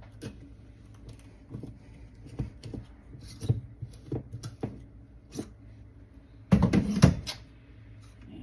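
Scattered light clicks and knocks of a tamper and portafilter being handled while ground coffee is tamped for an espresso machine. There is a louder clatter of knocks about six and a half seconds in.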